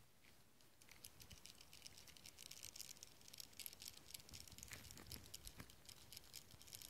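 Transmission gear shafts and their bearings turned by hand, giving a faint, fast, uneven rattling crackle that starts about a second in. The owner takes the rattle for a bad countershaft bearing.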